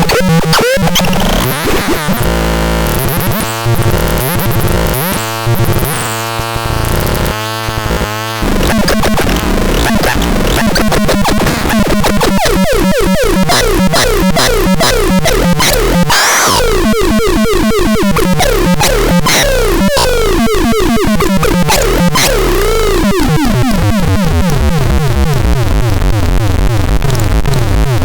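Loud, harsh electronic synthesizer noise: choppy, stuttering bursts of tone give way after several seconds to a fast, buzzy stream of sweeping pitches, with a sharp upward sweep near the middle and a downward swoop later.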